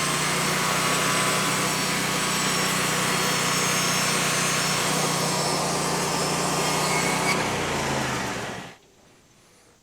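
Frontier OS35 portable bandsaw mill running under load, its engine pulling steadily as the band blade cuts through a log. Late on, the engine's pitch drops, and then the sound stops abruptly.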